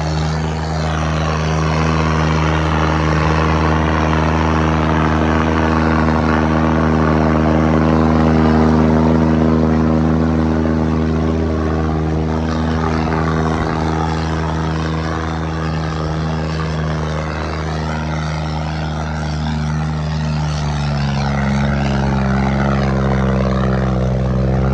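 Tractor diesel engine running hard at steady revs, with a loud, even engine note. Its pitch shifts about three-quarters of the way through and climbs near the end.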